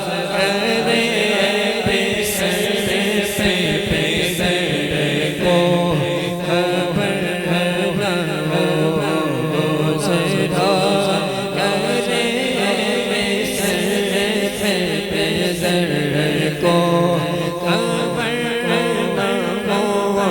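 Voices chanting a naat (Urdu devotional song) in long, wavering held notes, as a layered vocal backing.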